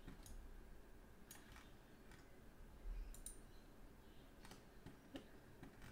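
Faint computer mouse clicks, about half a dozen spread over a few seconds, against near silence.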